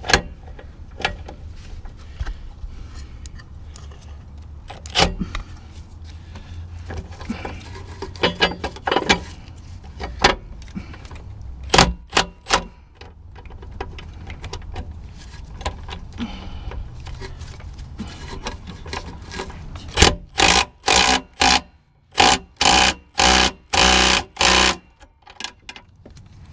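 Scattered clanks and clicks of tools and metal parts, then near the end a small impact wrench hammering in about ten short bursts, running a nut onto a torque box reinforcement bolt.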